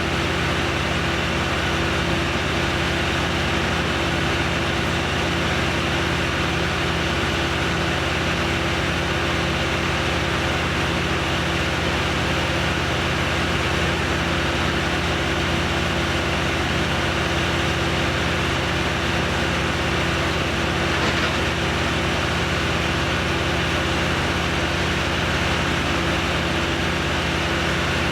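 An engine running steadily at one constant speed, never revving up or down.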